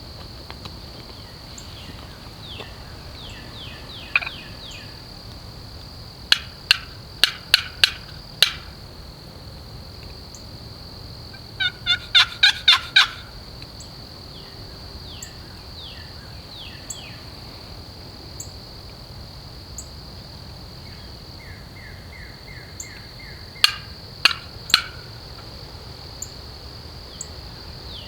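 Turkey yelping in short series: five evenly spaced sharp notes about six seconds in, a faster run of about six around twelve seconds, and three more near the end. A steady high insect drone and small songbird chirps run underneath.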